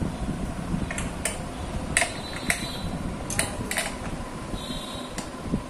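Irregular sharp clicks and light knocks as a CRT picture tube is handled in the TV's plastic front frame, hard plastic and glass knocking together.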